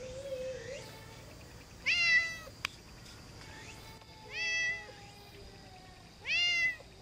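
Domestic cat giving three loud meows about two seconds apart, each about half a second long.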